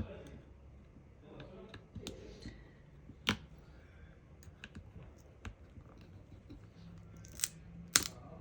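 Scattered sharp clicks and taps of a prying tool working against a smartphone's opened body and battery, with the loudest taps about three seconds in and near the end.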